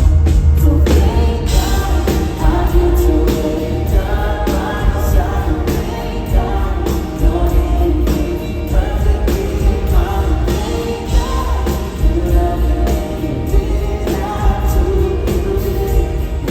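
Live band playing a country-pop song with a steady drum beat and heavy bass, with singing over it.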